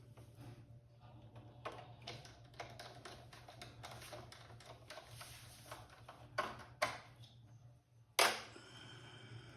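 Irregular small clicks and taps of screws and metal parts being handled as a graphics card is screwed into a desktop PC case, with a sharper metallic click a little after eight seconds that rings briefly.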